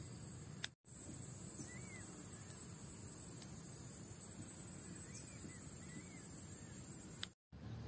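Steady high-pitched shrill of insects such as cicadas or crickets, with a few faint bird chirps over it. The sound cuts out completely for a moment under a second in and again near the end.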